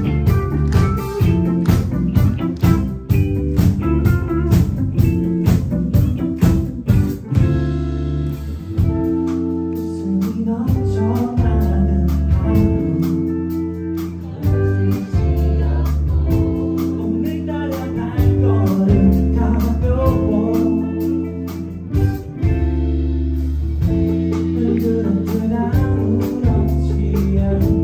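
Live band playing a song: drums, bass and electric guitar, with singing. Drums hit hard and steadily for the first several seconds, then drop back about eight seconds in, leaving long held bass notes under the guitar and vocal lines.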